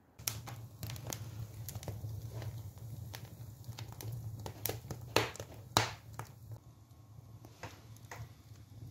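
Wood fire crackling in an open brick stove firebox, a steady low rumble of the burning with irregular sharp cracks and pops, two of them louder a little past the middle.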